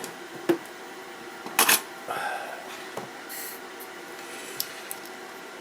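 A few sharp clicks and taps as tools are handled at a workbench, the loudest about a second and a half in, over a steady low background hum.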